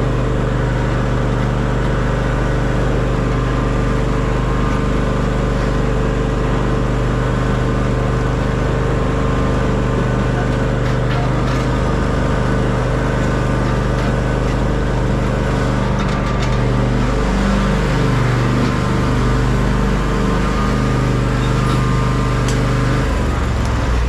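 Vehicle engine running steadily: a loud, low, even hum whose pitch dips and comes back about two-thirds of the way through.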